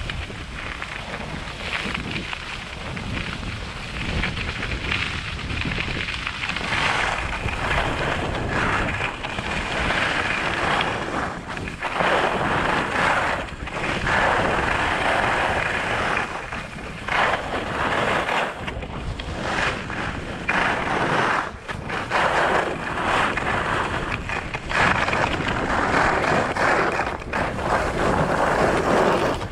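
Skis scraping and hissing over groomed, packed snow, the hiss swelling and fading over and over and louder from about seven seconds in, over wind rumble on an action camera's microphone.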